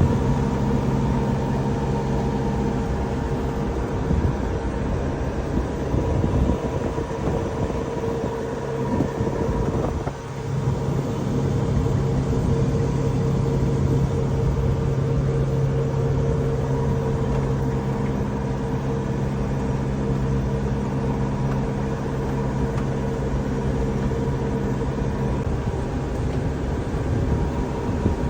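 Tractor engine running steadily, with a brief dip in level about ten seconds in.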